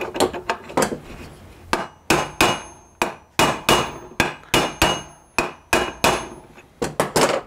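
Hammer tapping a new bronze bush into a Warn 8274 winch housing, driving it through the old bush. It is a quick run of light metal-on-metal taps, about three a second and slightly uneven, each with a short ring, as the bush is seated to depth.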